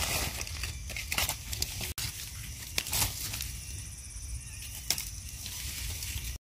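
Dry leaf litter and twigs crackling and rustling under hands as wild mushrooms are dug and pulled from the forest floor, with a few scattered sharp crackles.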